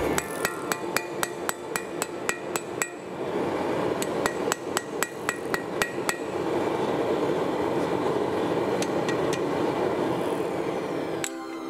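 Hand hammer striking a red-hot brass bar on a steel anvil. The blows come in quick runs of about five a second with a short ring after each, then a few scattered blows and a single last one near the end, over a steady rushing noise. The tone of the blows is the smith's check on the brass: a dull sound means it is still workable, a glassy ring means stop before it cracks.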